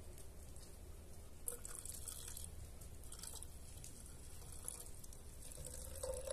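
Fuel trickling and dripping from a metal jerrycan's spout into a small clear plastic fuel container on a generator, faint, over a steady low hum.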